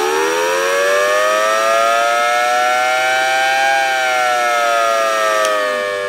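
Homemade miniature Thunderbolt 1000T siren with a 3D-printed horn, wailing loudly. Its pitch climbs over the first few seconds, peaks a little past halfway, then slowly falls.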